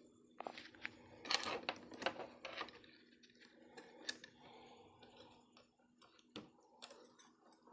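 Irregular clicks and rattles of small plastic parts handled by hand: a drone's white plastic battery case and LiPo battery pack being fitted together. The clicks are thickest in the first three seconds, with a few single clicks later, over a faint steady hum.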